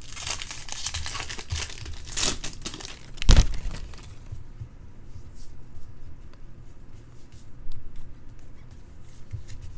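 Foil wrapper of a Bowman Draft Jumbo baseball card pack being torn open and crinkled, with a thump about three seconds in, followed by quieter rustling and clicks as the cards are handled.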